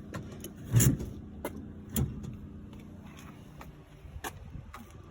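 A few sharp knocks and clunks of something being handled, the loudest about a second in and another about two seconds in, over a faint steady hum.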